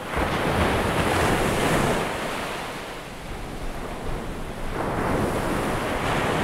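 Surf washing in: an even rushing that swells soon after the start, eases around three seconds in, and swells again near five seconds.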